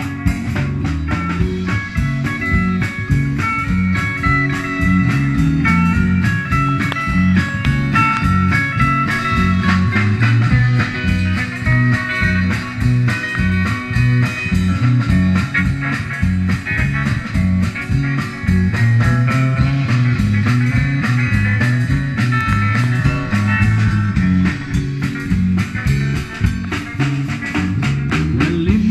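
A live rock band playing an instrumental passage: two electric guitars over electric bass and a steady drum beat, amplified through guitar amps and a PA.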